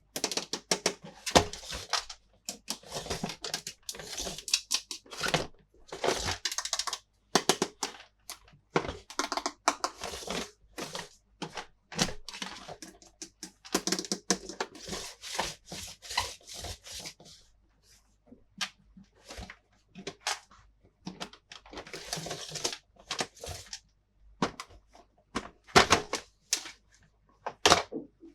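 Plastic toy pieces and their packaging being handled up close: quick irregular clicks and taps mixed with short rustling and crinkling.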